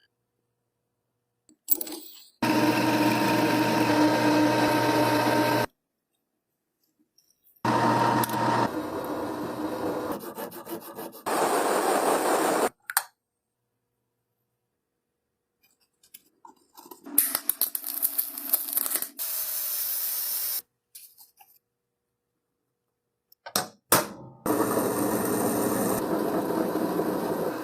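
Electric power tool running steadily with a motor hum, in four separate runs of three to five seconds each, with dead silence between them.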